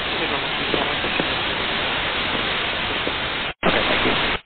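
Air-band radio static: a burst of hiss from an open transmission with no clear words, starting and stopping abruptly, with a brief break about three and a half seconds in.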